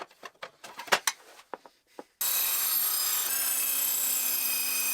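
A few light clicks and knocks of handling, then, about two seconds in, the steady high whine of an Evolution Rage 5 table saw running and cutting wood comes in suddenly at full level.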